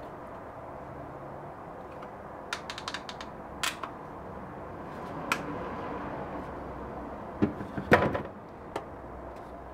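Plastic ratchet clicks of a one-handed bar clamp's trigger as it squeezes a metal end fitting into a turned walnut tube, pressing the hardware home. About eight seconds in comes a louder run of knocks as the clamp is released and handled.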